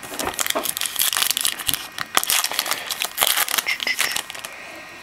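Trading-card pack wrapper crinkling and crackling in the hands as the next pack is taken from the box, stopping about four seconds in.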